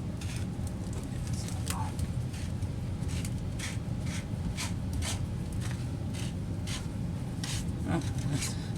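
Short, irregular scraping and rubbing strokes, one or two a second, as parts of a sewage pump assembly are tightened and worked into place by hand, over a steady low hum.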